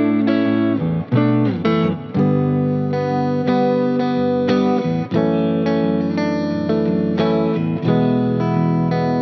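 Electric guitar, a Sterling by Music Man CT30 with three single-coil pickups, playing sustained notes and chords over a backing track, with a few sliding notes about a second in.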